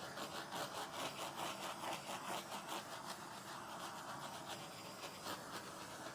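Quick rhythmic scratching strokes, about four a second, that die down after about three seconds into a faint steady hiss, with one more stroke near the end.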